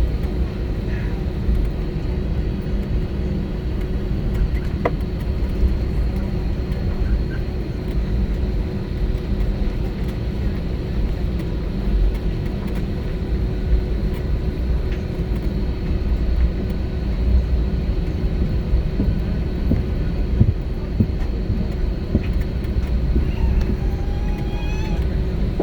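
Steady low rumble inside the cabin of an Airbus A321-231 airliner, with a faint steady whine above it, unchanging throughout.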